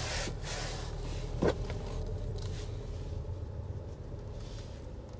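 Cabin noise of a moving Audi Q5: a steady low engine and road rumble, with a brief sharp sound about a second and a half in.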